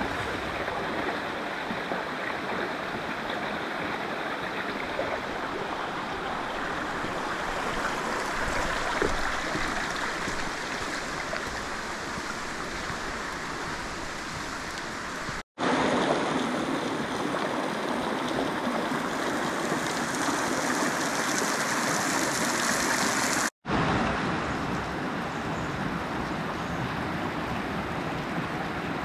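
Stream water rushing steadily over rocks, broken twice by a brief dead silence, about halfway through and again about three quarters through.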